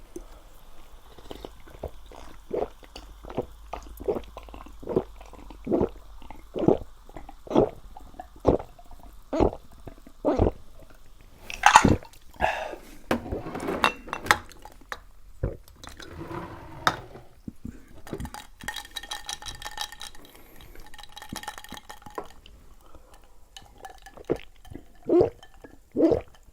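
A person drinking in steady gulps, about one swallow a second, followed by a sharp clink as a drink container is handled. Gulping starts again near the end.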